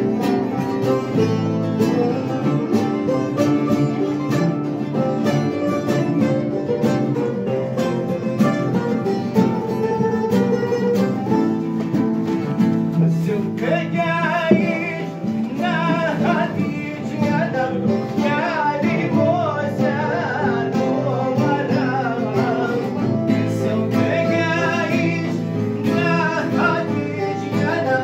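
Several long-necked lutes played together as a group. About halfway through a voice joins in singing over them.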